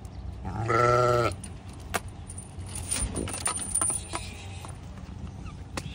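A penned goat or sheep gives one loud, quavering bleat lasting under a second, about a second in. Scattered light clicks and rattles follow.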